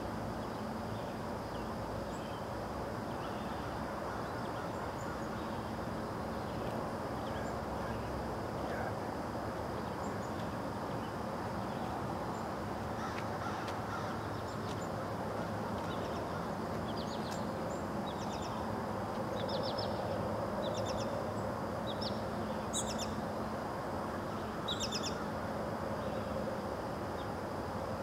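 Birds calling: short calls repeated in quick clusters, more frequent and louder in the second half, over a steady low rushing background and a thin steady high tone.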